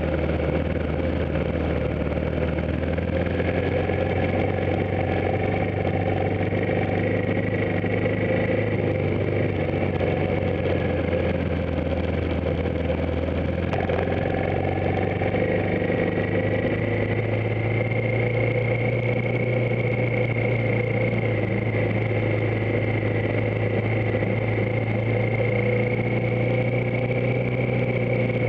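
Motorcycle engine running steadily as the bike rides a dirt forest track. Its note rises gradually about halfway through, with a single faint knock around the middle.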